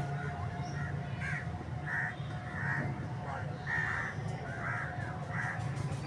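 An animal calling in a run of about seven short calls, evenly spaced, over a steady low hum.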